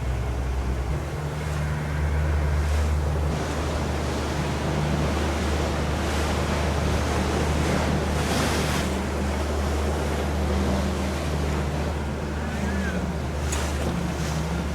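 Motorboat underway: a steady low engine drone under the rush of water along the hull and wind buffeting the microphone, with a brief louder rush of water about eight seconds in.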